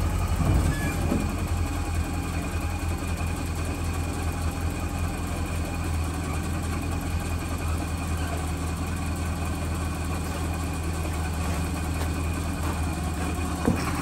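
Porsche 944's four-cylinder engine idling steadily, running smooth.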